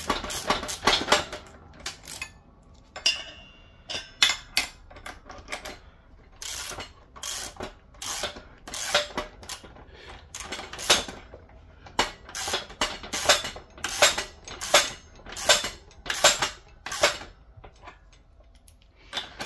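Sharp metallic clicks and clinks as a hand ratchet turns a bushing press tool to press a polyurethane control arm bushing into its bore. The clicks are sparse at first, then come about one or two a second, irregularly, until near the end.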